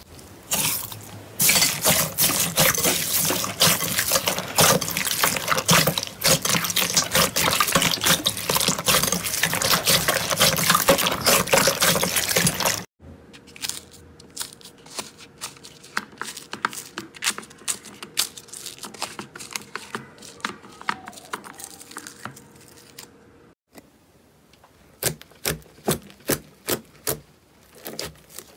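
Hand squishing green slime packed with small beads: dense wet crackling and squelching that stops abruptly about 13 s in. Then hands pressing crunchy foam-ball slime give sparse, quieter crackles and clicks. Near the end a finger poking puffy pink slime makes sharp popping clicks, about two to three a second.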